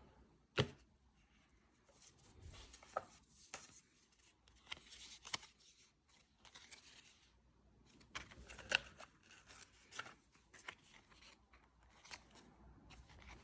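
Hand-packing sounds: paper and plastic packaging rustling and being handled, with scattered light taps and clicks and two sharper knocks, about half a second in and about nine seconds in.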